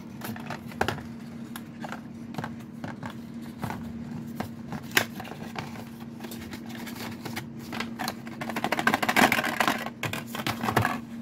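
A small cardboard product box being opened and handled: scattered taps, clicks and scrapes of cardboard, then a louder stretch of rustling and scraping about nine seconds in as the paper instruction sheet comes out. A steady low hum runs underneath.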